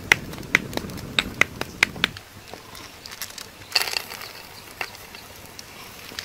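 Wood fire crackling and popping under a stone slab for about two seconds. Then, after a cut, cockle shells click against the stone as they are set down, with a cluster of clicks about four seconds in.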